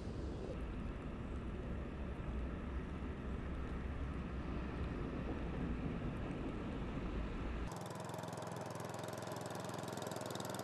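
Steady outdoor background noise with a heavy low rumble; about three-quarters of the way through it changes abruptly, the rumble cutting out and a brighter, hissier noise taking over.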